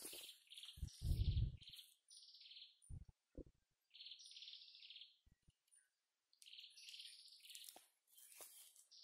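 Bird calls: several bursts of short trilled notes, some falling in pitch. A heavy low thump about a second in, with a few soft knocks, most likely footsteps.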